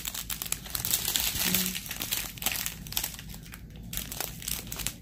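Crinkling and crackling of a strip of small clear plastic bags of diamond painting drills being handled and turned in the hand.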